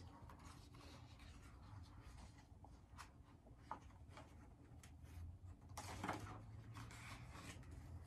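Faint rustle and light handling of a picture book's paper pages as one page is turned, with the main rustle a little past the middle.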